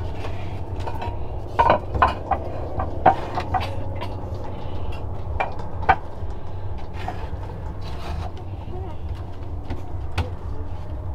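Scattered knocks and clatters of objects being handled, a few sharper ones standing out, over a steady low rumble.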